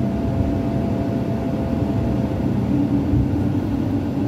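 Steady road noise inside a car's cabin at highway speed: a constant low rumble of tyres and engine.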